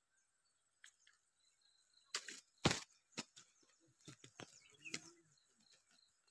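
A cluster of sharp knocks and grass rustles, the loudest a heavy thump about two and a half seconds in, then lighter knocks over the next two seconds: the sounds of a pole-and-line angler landing a small fish on the grassy bank and handling it.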